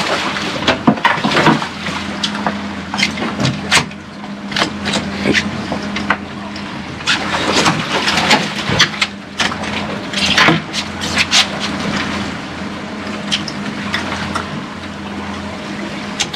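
Boat engine running with a steady low drone, water rushing along the hull, and frequent sharp knocks and bangs on the deck.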